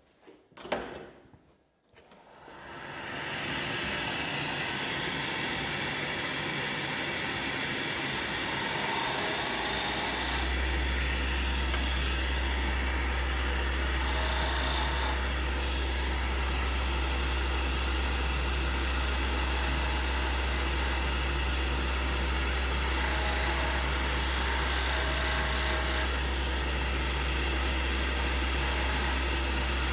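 Wood lathe starting up about two seconds in, then running steadily. About ten seconds in, a strong steady low hum joins.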